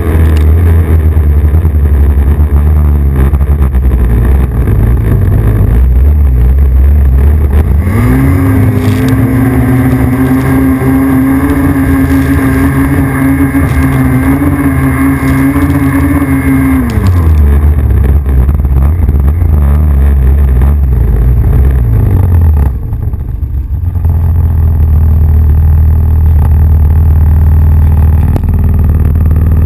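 Snowmobile engine running hard under load. About eight seconds in the revs rise and hold high for roughly nine seconds, then fall back to a lower steady note. Around twenty-three seconds in the engine briefly drops off, then picks up again.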